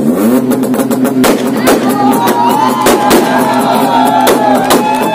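Loud music from a car's sound system: a held low tone that slides up at the start, a higher melody line over it, and irregular drum hits.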